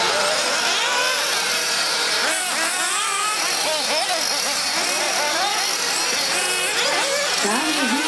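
Several 1:8-scale nitro RC buggy engines buzzing at high pitch, overlapping and rising and falling in pitch as the cars rev up and back off through the corners.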